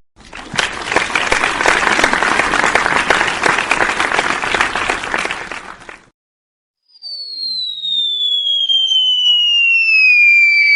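Two transition sound effects in turn: first a dense crackling hiss full of small clicks for about six seconds, fading out; then, after a second of silence, a high whistle that falls steadily in pitch, with a fainter tone rising underneath it.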